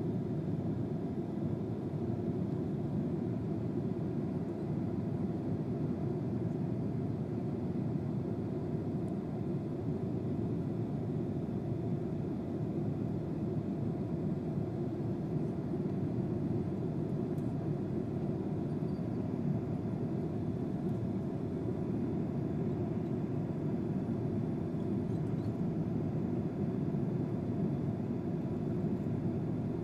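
A steady, even rush of airliner cabin noise as heard from inside the cabin: a constant low-pitched noise that holds its level throughout.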